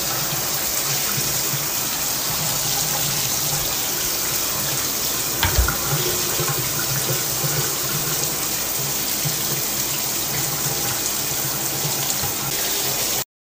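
Water running steadily in a bathtub, with a single low thump a little over halfway through.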